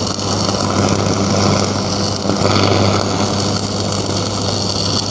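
Stick (arc) welding: the electrode arc crackling and sizzling steadily on steel, over a steady low buzz.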